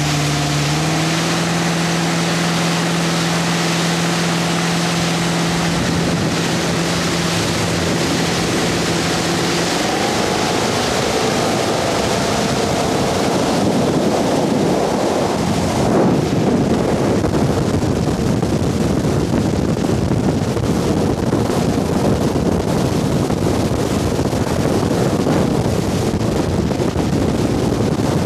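Motorboat engine running at speed, its note stepping up about a second in. From about halfway on, the engine is covered by rushing wind on the microphone and water from the wake.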